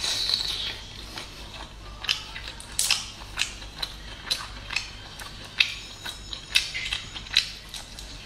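Close-miked eating of garlic prawns: wet chewing, biting and mouth clicks, coming irregularly about once or twice a second, with a brief louder burst right at the start.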